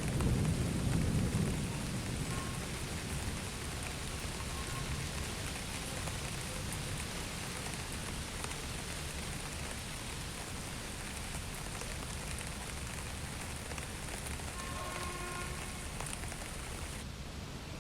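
Steady rain falling, an even hiss, with a low thunder rumble dying away over the first couple of seconds.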